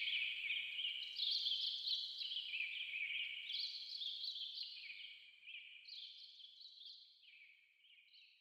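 High twittering chirps in repeated phrases that step downward in pitch, fading away steadily to nothing near the end.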